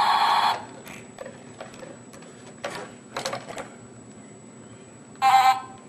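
Battery-powered toy tractor: a steady electronic sound cuts off about half a second in, followed by scattered light plastic clicks as the toy is handled and its buttons are pressed. Near the end comes a short electronic horn honk.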